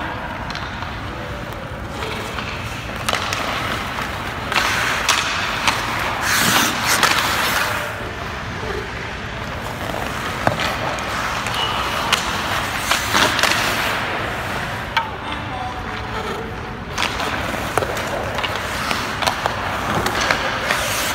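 Ice hockey skate blades scraping and carving across rink ice in long hissing strokes, with scattered sharp knocks of pucks and sticks.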